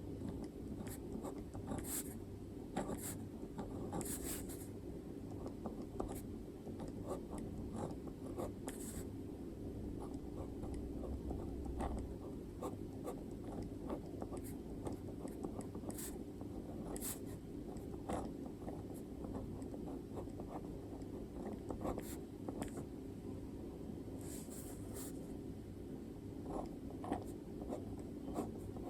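Handwriting on paper: a writing tool scratches out irregular short strokes with small ticks as letters are formed, over a steady low hum.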